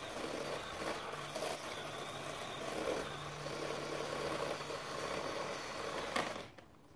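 A motor running with a steady low hum that comes and goes over outdoor background noise. About six seconds in there is a click, then the sound fades out.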